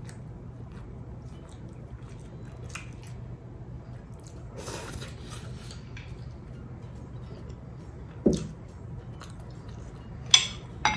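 Close-miked eating sounds: a person chewing food, with a sudden louder sound a little past eight seconds in and two sharp clicks near the end.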